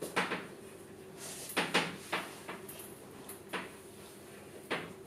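Chalk writing on a blackboard: about five short taps and scratchy strokes, the strongest cluster a little past a second and a half in, over a steady low hum.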